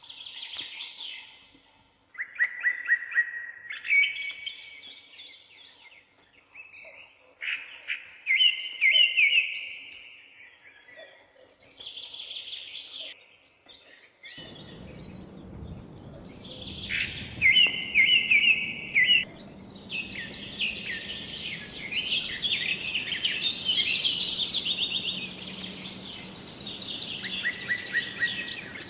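A songbird singing in short repeated phrases of chirps and trills. About halfway through, a steady rushing noise with a low hum comes in underneath, and the song becomes denser and higher.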